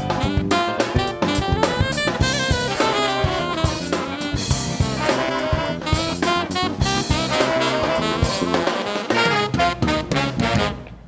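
Live funk band playing: saxophone horn lines over drum kit, bass and piano, with a steady groove. The band drops out briefly near the end.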